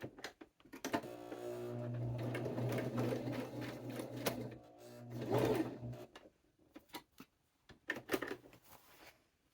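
Electric sewing machine stitching a seam, its motor running at a steady speed for about five seconds and then stopping. A few short clicks follow near the end.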